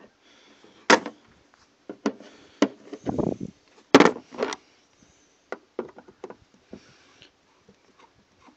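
Hand tools clicking and knocking against a hard plastic radiator cover as small plastic tab screws are worked at with pliers. There are sharp knocks about a second in and about four seconds in, with a short scraping rumble between them.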